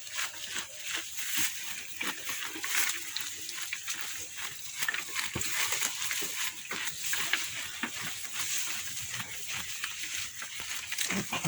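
Goats chewing and tugging at fresh grass, a steady crunching and rustling. Near the end a billy goat gives a short cough; it has been coughing for two days.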